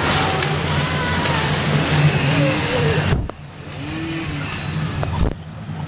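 Whitewater rapids rushing and churning around a river-rapids ride raft, with faint voices in the background. About three seconds in the sound suddenly drops and turns muffled for about two seconds, with a knock just before it comes back.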